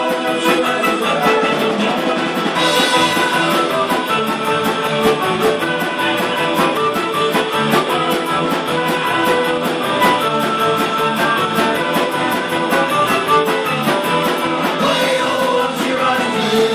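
Live Celtic rock band playing loudly: electric guitars, bass guitar and drum kit driving a fast, steady beat, with a fiddle.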